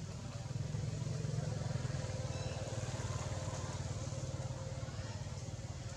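An engine running steadily with a low, evenly pulsing hum, getting a little louder about half a second in.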